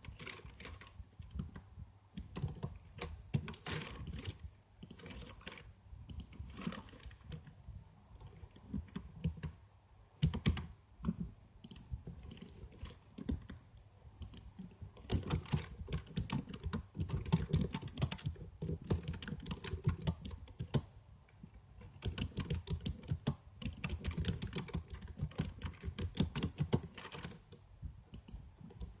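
Typing on a computer keyboard: irregular runs of key clicks with short pauses between bursts.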